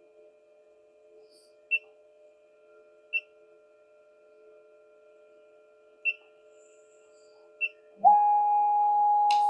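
Four short beeps from the CNC router's controller keypad as buttons are pressed, then a steady whine starts about a second from the end: the stepper motors driving the NymoLabs NBX-5040 router's axes as it homes.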